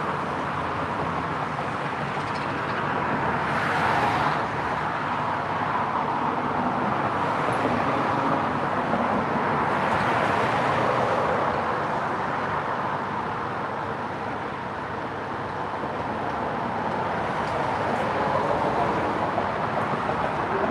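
Road traffic on the street below: a steady rush of car noise that swells three times as cars pass, about four seconds in, around ten seconds, and near the end.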